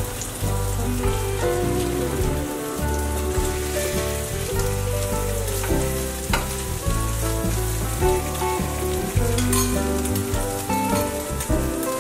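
Egg-dipped bread slices sizzling in hot oil in a frying pan, over background music with a steady bass line.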